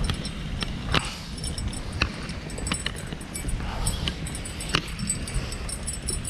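Wind rumbling on the microphone, with a few sharp clicks and knocks about a second apart.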